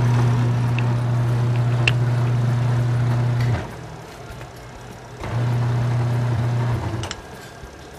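The wash motor of an LG 14 kg twin-tub washing machine runs with a steady hum, stops about three and a half seconds in, then runs again for under two seconds: the agitating stop-start of a wash cycle, now working with its new motor capacitor. A few sharp clicks come through, one near each stop.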